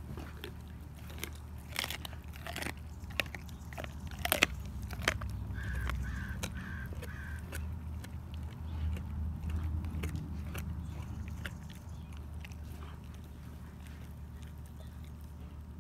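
German Shepherd crunching a raw chicken bone: sharp cracks of bone breaking between its teeth, coming thick and fast in the first few seconds with the loudest crack about four seconds in, then slower, sparser chewing.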